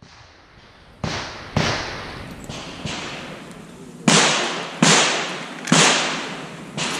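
Handgun shots on an outdoor range. There are two sharp shots about a second in and a few fainter ones after them. Then come three loud shots about three-quarters of a second apart, starting some four seconds in, each ringing out in a short echo.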